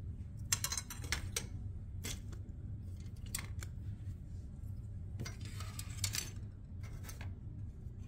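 Hard plastic model-kit sprues and loose parts clicking and clacking as they are handled and set down, with a longer crinkling rustle of a plastic parts bag about five seconds in.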